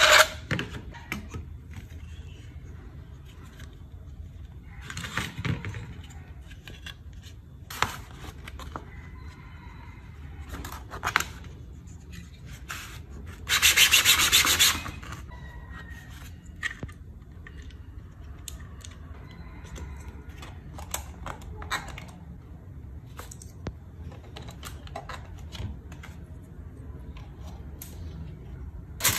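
White 3D-printed plastic mold pieces being rubbed and sanded on a sheet of sandpaper, with a louder stretch of rasping about halfway through. Scattered clicks and knocks of the plastic parts being handled.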